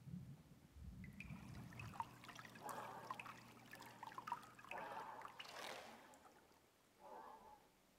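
Faint water splashing and trickling as a head comes up out of a plastic bucket of water and water runs off the diving mask and snorkel back into it, with a last short splash near the end.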